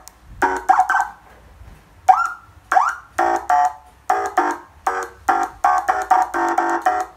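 Electronic emergency-vehicle siren amplifier sounding a quick, irregular series of short electronic horn blasts, with rising chirps about two seconds in and again shortly after.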